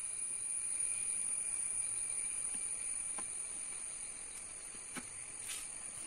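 Steady high-pitched drone of insects, with a few faint clicks of a ladle against the steel pots as batter is spooned into the banana-leaf-lined steamer.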